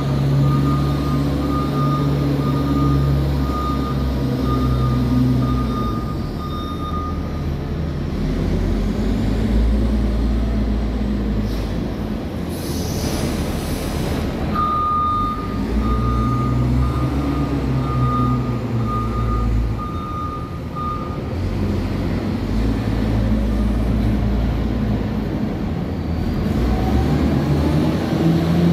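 Wheel loader's diesel engine running and rising and falling in pitch as it works, with its reversing alarm beeping steadily for the first several seconds and again from about fifteen seconds in. A short burst of noise comes a little before halfway.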